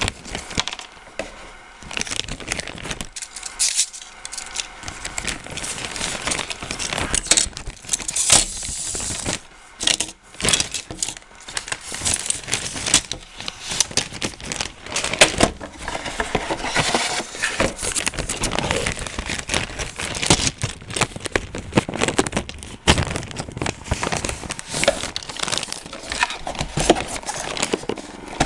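Irregular crinkling and clicking, like plastic being handled.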